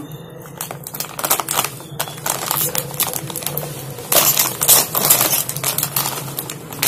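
Crinkling of a shiny plastic snack packet being handled and torn open: a dense, irregular crackle that is loudest about four seconds in.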